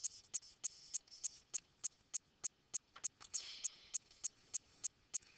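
Faint pen-writing sounds: a short scratch of a stroke about three and a half seconds in, over a regular light ticking about three times a second.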